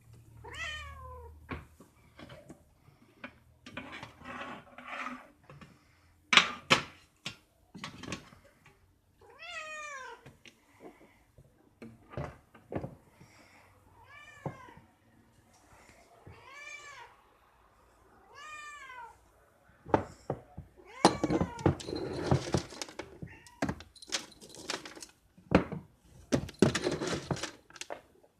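Sphynx cat meowing repeatedly, about six separate meows spread over several seconds apart. Clicks and rustling run between the meows and grow busier and louder in the last third.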